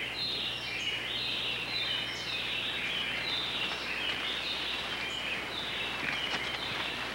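Forest ambience: a dense, continuous chorus of high-pitched calls that repeat and step downward in pitch, over a faint steady low hum.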